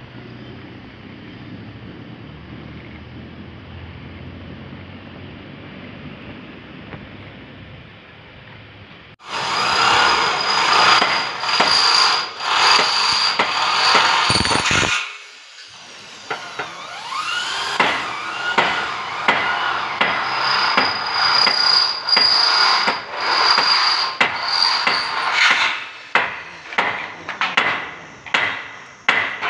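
Low outdoor background noise, then, about nine seconds in, repeated hammer blows on steel roof framing over a power tool's steady high whine. Near the end come hammer blows alone, each ringing briefly.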